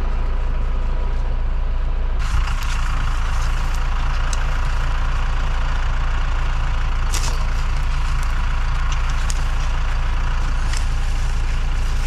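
An engine running steadily at idle under everything. From about two seconds in there are scrapes and sharp clicks of a spade and terriers digging in soil.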